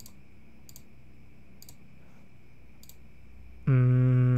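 A few computer mouse clicks, roughly a second apart, then near the end a man's voice holding one long steady note, like a drawn-out "mmm".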